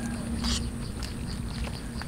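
A crowd of cats eating cooked rice from a metal tray: a scatter of small wet chewing and smacking clicks, a little denser about half a second in, over a steady low hum.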